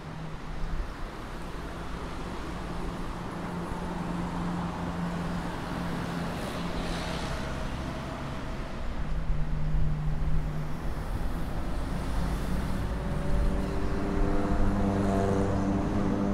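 Road traffic passing on a nearby street: a steady rumble of car engines and tyres, swelling about two-thirds of the way through. Near the end comes the steady drone of a heavier vehicle's engine.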